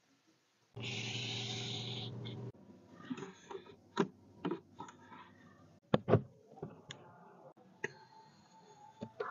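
Hands working a car's interior controls and storage tray: a steady hum for about two seconds near the start, then scattered sharp clicks and knocks, with a loud one a few seconds in and a double knock about six seconds in.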